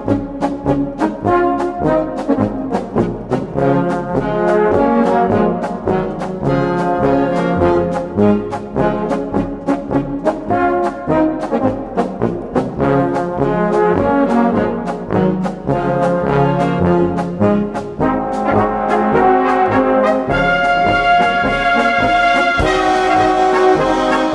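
Brass band playing a Bohemian polka: a brass melody over a steady oom-pah beat of bass notes and off-beat chords. About twenty seconds in, long held high notes come to the fore.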